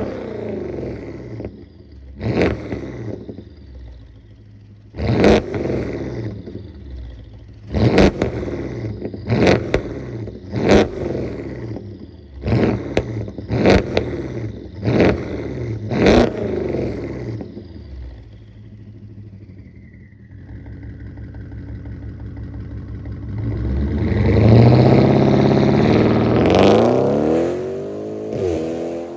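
BMW F10 with a downpipe and muffler delete being revved: a run of short, sharp throttle blips, then a thin falling turbo whistle, then one longer rev near the end.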